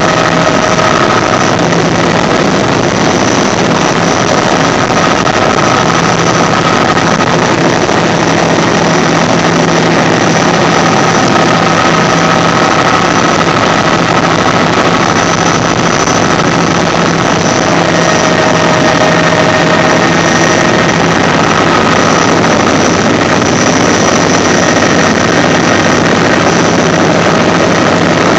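Bell 206 JetRanger III helicopter heard from inside the cabin: the Allison 250 turboshaft's high, thin whine over steady rotor and engine noise, at low hover over the airfield.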